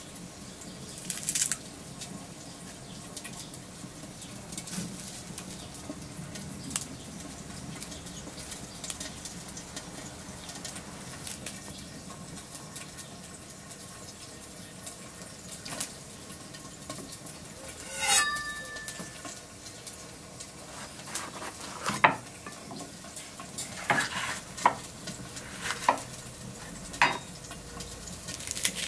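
Close-up kitchen handling with no speech: fresh herbs rustling as they are pressed into a stone mortar, then a green bell pepper torn apart by hand, giving a run of crisp snaps and cracks over the last several seconds. A faint crackle from a wood fire runs underneath.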